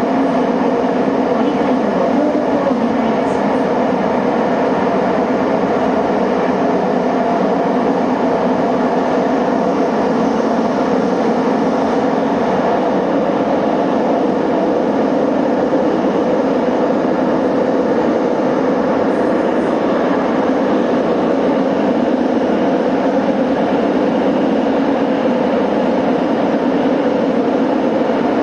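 Subway train running steadily at speed through a tunnel, heard from the front of the train: an even, continuous running noise of wheels on rail and motors, with no stops or distinct clicks.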